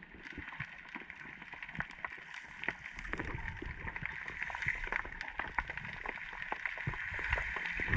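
Underwater sound picked up through an action camera's waterproof housing during a freedive: a steady hiss with many sharp clicks and crackles scattered throughout, growing a little louder over the last few seconds.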